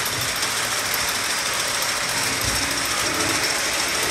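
O-gauge model trains running on three-rail track: a steady whir of electric motors and gearing with the rolling of wheels on the rails.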